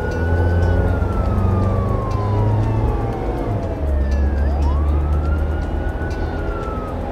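A siren sound effect wailing slowly: one tone falls in pitch over about four seconds, rises quickly, then begins to fall again, over a steady low rumble.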